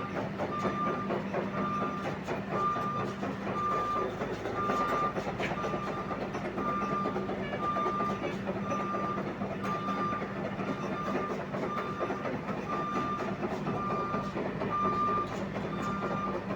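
Excavator with a vibro hammer running: a steady low engine hum under a dense, continuous rattle. A reversing alarm beeps about twice a second throughout.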